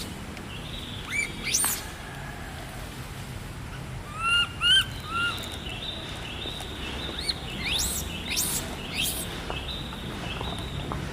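Short high chirping and squeaking animal calls, scattered, with a run of three arched calls about four to five seconds in.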